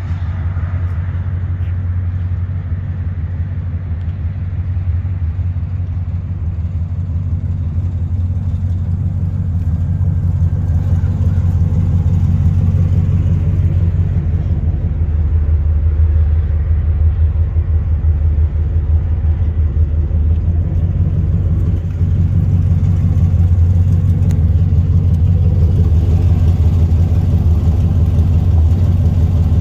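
Pickup truck engine idling steadily with a low exhaust rumble, growing louder about a third of the way in.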